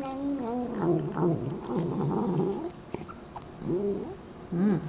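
A domestic cat making wavering, drawn-out vocal sounds while eating wet food: one long call that bends up and down, then two short calls near the end.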